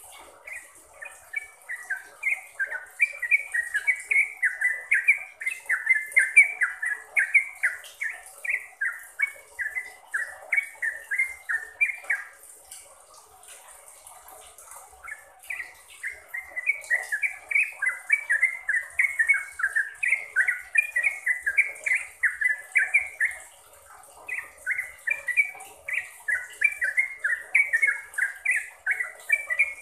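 Yellow-vented bulbul (trucuk) singing its bubbly trucukan song in long runs of quick notes, about four to five a second, breaking off about twelve seconds in for a few seconds and again briefly near the end, over a steady faint background hiss.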